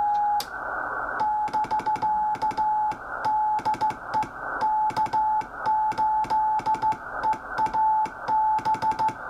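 The restored WRL Model 755 VFO's signal heard through a ham receiver as a strong, steady beat note of about 800 Hz, keyed on and off in a Morse code pattern over receiver hiss, with a sharp key click at each switching.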